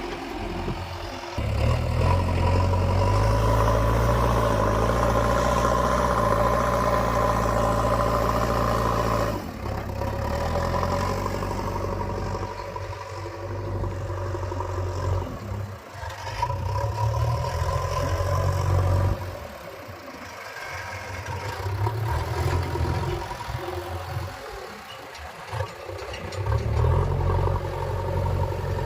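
Diesel engine of a JCB 3DX backhoe loader at work, rising under load and easing back toward idle several times as it digs and loads soil.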